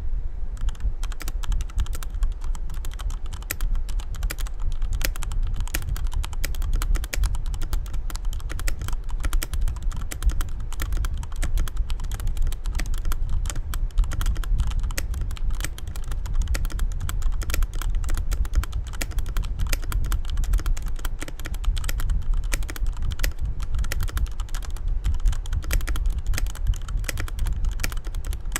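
Fast, continuous typing on a mechanical keyboard with Cherry MX Red linear switches: a dense patter of keystrokes clacking as keys bottom out and return, with no pauses.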